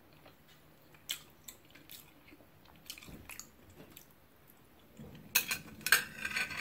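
Close-miked chewing with small wet mouth clicks and smacks, then louder rough scraping of cutlery against a dish about five seconds in.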